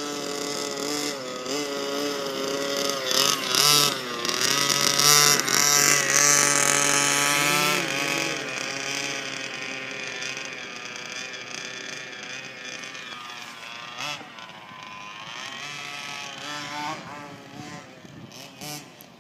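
Small engine of a rebuilt Baja vehicle running and revving up and down, loudest a few seconds in, then running quieter and lower, with further rises in pitch near the end.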